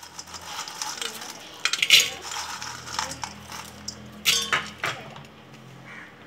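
Crisp fried aloo nimki strips dropped into a stainless steel bowl, clattering against the metal in two short clusters of sharp clicks, about two seconds in and again past four seconds.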